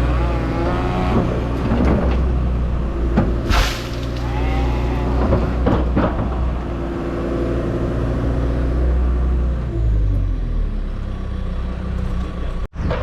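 Heavy equipment engine running steadily under load, its pitch shifting as it works, with several sharp knocks and a short hiss about three and a half seconds in.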